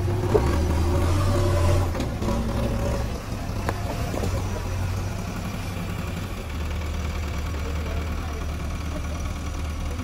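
JCB 3DX backhoe loader's four-cylinder diesel engine running under load as the front loader works soil. It is louder over the first two seconds, then settles to a steady run. A few short knocks from the loader come in the first half.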